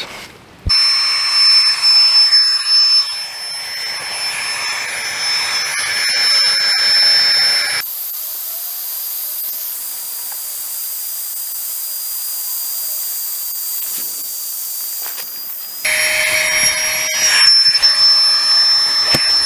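A Flextail Tiny Pump 2X, a small battery-powered air pump, running with a steady high whine and a rush of air as it inflates a sleeping pad. Its sound changes about eight seconds in and again about sixteen seconds in.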